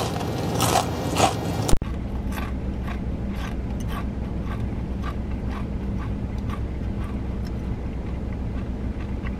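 Crispy KFC fried chicken being bitten and chewed close to the microphone. Loud crunching comes first, then an abrupt cut about two seconds in, then quieter steady chewing about twice a second over a low hum.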